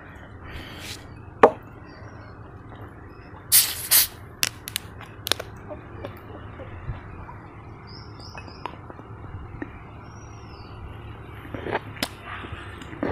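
Two short, loud hisses as a plastic soft-drink bottle's cap is twisted open and the gas escapes, followed by small clicks of the cap and bottle. A sharp click comes just before, and birds chirp faintly in the background.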